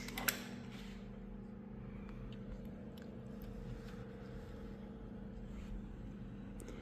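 Two quick clicks of lock parts being handled just after the start, then a faint steady hum with a few light ticks.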